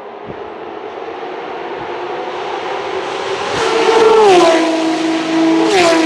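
Two Ferrari FXX K EVO hypercars with 1050 hp V12 engines approach and fly by in quick succession. The engine note swells and drops sharply in pitch as the first car passes, about four seconds in. It drops again as the second car passes close, near the end.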